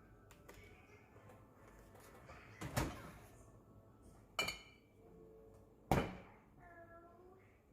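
Kitchenware being handled: three separate knocks a second or so apart, the second a short ringing clink and the last the loudest.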